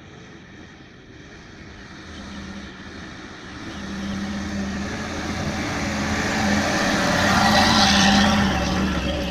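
A vehicle engine running with a steady hum, growing louder as a rushing noise builds to a peak about eight seconds in.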